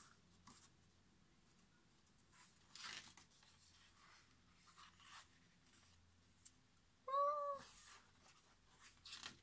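Large glossy photobook pages being handled and turned, giving soft paper rustles, with one short high-pitched call about seven seconds in.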